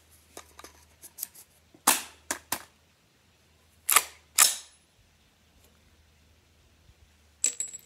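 Sharp metallic clicks and clacks of a 50 Beowulf AR-style rifle being handled to clear a jam, its action and magazine being worked. There is a cluster of three about two seconds in, two more around four seconds in, and one near the end.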